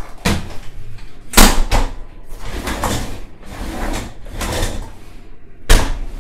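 Graco Blossom high chair frame knocking and rattling as it is turned upright and set down on a wooden floor. There is a loud clunk about a second and a half in, another near the end, and handling rattles between them.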